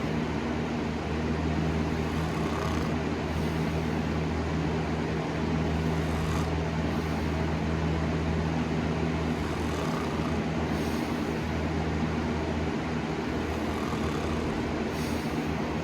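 A person snoring in bed, faint breaths about every four seconds over a steady low hum.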